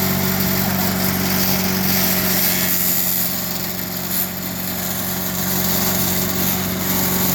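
The small single-cylinder engine of a Craftsman 4 HP wood chipper/shredder, running steadily on its replacement carburettor.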